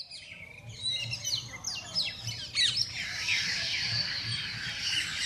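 A chorus of birds chirping and calling, many quick downward-sweeping notes, thickening about three seconds in into a dense, steady twittering.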